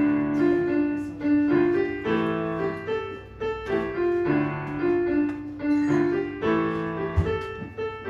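Digital stage piano playing a rhythmic introduction alone, a bass note and chord struck about once a second. A short low thump comes about seven seconds in.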